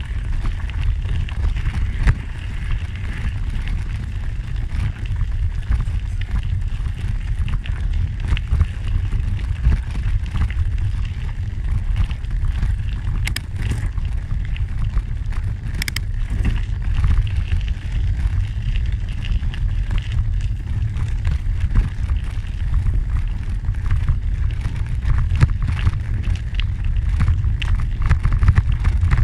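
Wind rumbling steadily on the microphone while moving along a gravel trail, with a constant crunch and scattered ticks from the trail surface underfoot or under the wheels. A couple of sharper clicks stand out about halfway through.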